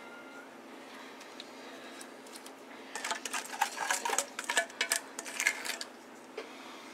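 Silicone spatula scraping thick glaze out of a metal bowl and spreading it over a brisket in a baking dish. A quick run of small scrapes, clicks and wet smacks starts about three seconds in and lasts about three seconds.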